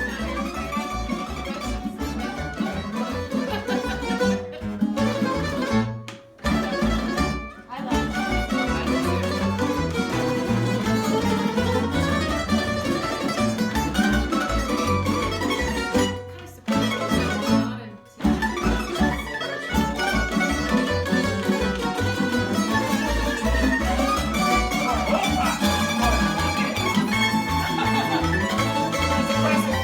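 Tamburitza folk ensemble playing live: plucked tamburica strings over a steady bass beat, briefly dropping out twice.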